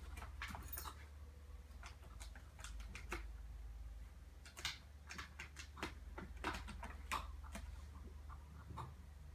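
Irregular light taps, scratches and knocks as a kitten paws and claws at a toppled sisal-wrapped cat climbing frame, with the sharpest knocks clustered near the middle. A low steady hum runs underneath.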